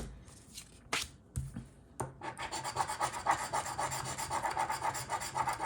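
A scratch-off lottery ticket being scratched. After a few light taps, rapid, fine scraping strokes start about two seconds in and keep going.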